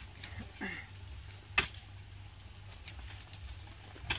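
A heavy kassi, a wrestler's spade-hoe, chopping into loose, dry akhada earth with two sharp strikes about two and a half seconds apart. The first, about one and a half seconds in, is the louder.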